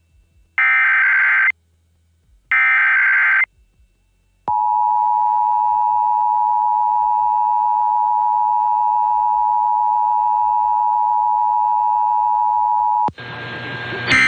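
Emergency Alert System test broadcast over AM radio: two SAME header data bursts, each a raspy electronic warble of about a second, two seconds apart. Then the steady two-tone EAS attention signal for about eight and a half seconds, which cuts off suddenly into a noisy hiss near the end.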